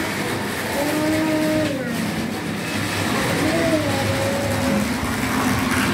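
Model steam tram locomotive on DC running along the layout track: the small motor's hum wavers up and down in pitch over a steady rolling noise from the wheels on the rails.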